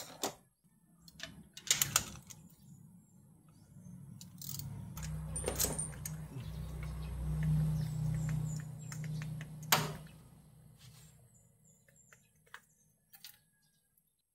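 Hand tools and metal parts clicking and clinking during spark plug work in a car's engine bay. Midway a low hum swells over several seconds and fades.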